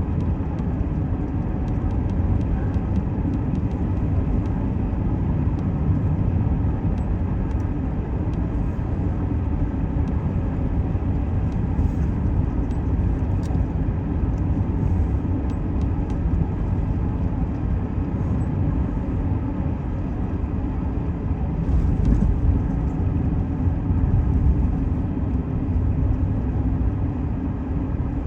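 Steady road and engine noise heard from inside a Chevrolet pickup's cab driving on a snow-covered road: a continuous low rumble with faint scattered ticks, swelling slightly about three quarters of the way through.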